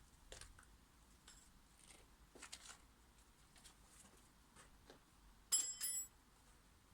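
Faint scattered clicks and taps, then two short bright metallic clinks in quick succession a little over five seconds in, the loudest sounds.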